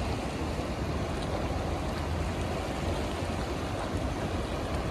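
Steady rushing of a fast-flowing river running high, swollen with rainwater and dam-released water.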